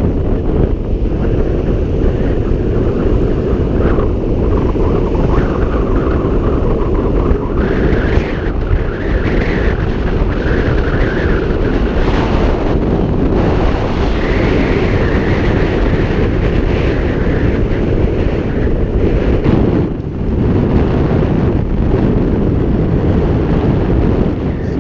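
Strong wind buffeting the camera microphone in a loud, steady rumble, with surf breaking on the beach beneath it.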